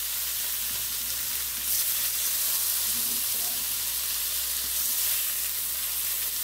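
Sauteed vegetables sizzling steadily in a hot pan.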